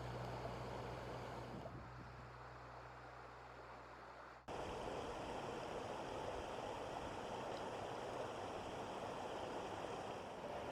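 Flowing river water, a steady even rush that starts abruptly about four and a half seconds in. Before that, a low steady hum fades out.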